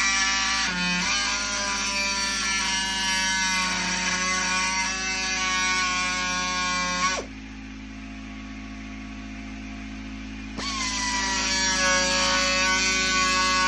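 Oscillating multi-tool running and cutting with a multi-material blade, a strong buzzing whine whose pitch sags and drifts under load. It stops sharply about seven seconds in, then is triggered again about three seconds later, its pitch falling as the blade bites.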